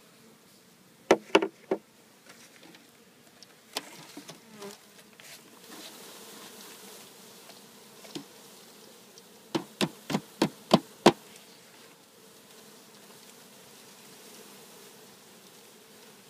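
A mass of Carniolan honeybees buzzing with a steady hum as the bees are dumped from their package into the hive. Sharp knocks of the package box being banged to shake the bees out come a few times early on and then as a fast run of about seven about ten seconds in; the knocks are the loudest sounds.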